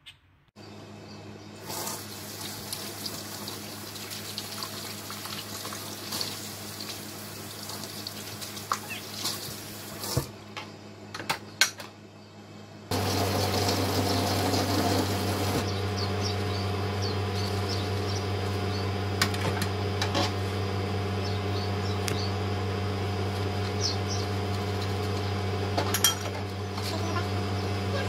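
Kitchen sink sounds: water running from a tap with dishes and cutlery clinking now and then, over a steady low hum. It all grows louder about halfway through.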